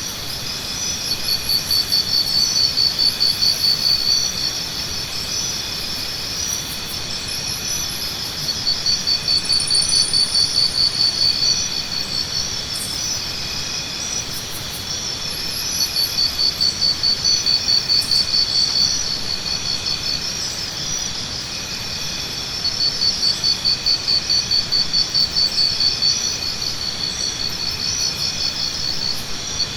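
Jungle morning ambience: a steady, high-pitched insect chorus. A louder, rapidly pulsing insect call rises out of it in bouts of about three seconds, four times, roughly every seven seconds. Faint short high chirps sound above it.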